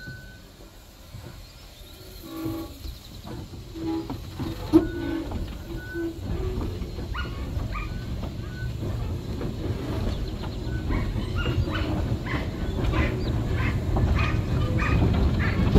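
Narrow-gauge steam locomotive pulling away. Its exhaust chuffs grow louder and quicker as it gathers speed, over a rising rumble of the wheels on the track.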